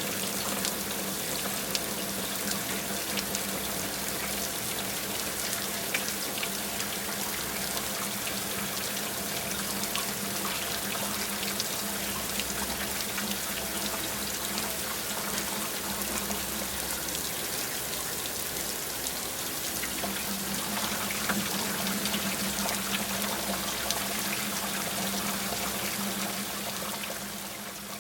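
Heavy rain falling steadily: a dense hiss full of small drop ticks, over a low steady hum. It starts to fade out near the end.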